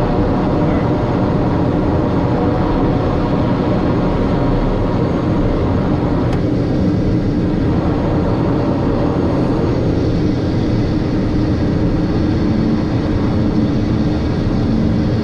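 Cockpit noise of a Piper M600's PT6A turboprop engine and propeller during the landing rollout and taxi: a steady drone, with a whine that fades about halfway through.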